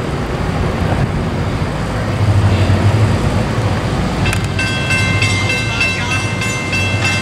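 A railroad grade-crossing warning bell starts ringing about four seconds in, its several high tones sounding together, over a steady low rumble from the approaching train's diesel locomotives.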